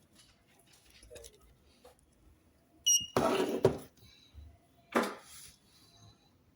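A short high electronic beep from the Secureye S-AL370 GSM alarm panel as it is switched on, about three seconds in. Faint clicks of the panel being handled, with two louder bursts of plastic handling noise just after the beep and again about two seconds later.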